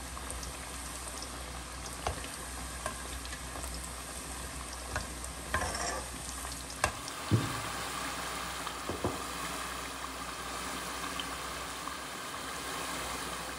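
Namak pare dough pieces deep-frying in hot oil in a large aluminium pot, sizzling and bubbling steadily. A slotted metal spatula stirs them, with a few sharp clinks against the pot in the first half.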